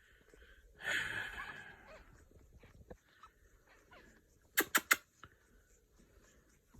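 A newborn kitten's short, high cry about a second in, then three quick sharp clicks a little before the five-second mark.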